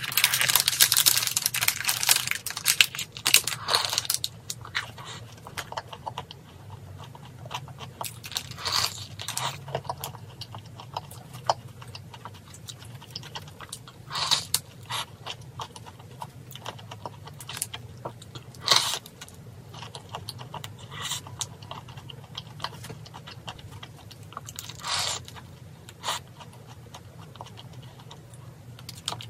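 Paper wrapper crinkling for the first few seconds, then a croffle with a sugar-coated crust bitten and chewed close to the microphone, with a crisp crunch every few seconds.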